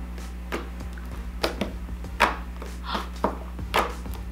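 Homemade glue slime clicking as fingertips press and knead it flat: a series of short, crisp clicks at uneven intervals, about two a second.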